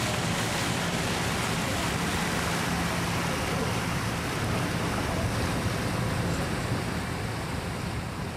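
Boat engine running with a steady low hum, under the rush of water along the hull and wind buffeting the microphone.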